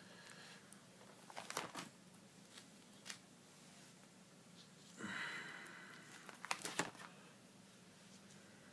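Plastic binder pocket pages faintly crinkling and rustling as they are turned, with a few short clicks and one longer rustle about five seconds in.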